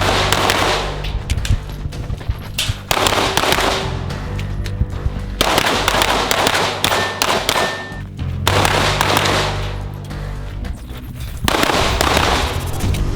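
Rapid pistol shots from a compensated Glock 19, with background music running under them.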